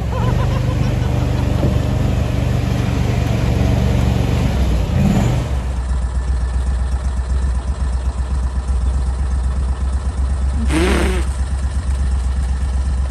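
A small vehicle engine running steadily as a constant low hum. About five and a half seconds in, it drops to a lower, steady rumble.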